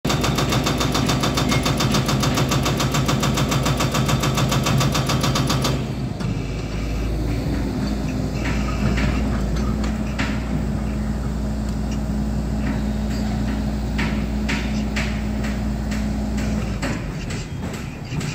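Hydraulic breaker on a Volvo 210 excavator hammering rock in a rapid, even rattle, which stops abruptly about six seconds in. The excavator's diesel engine then keeps running steadily, with scattered sharp clanks and knocks.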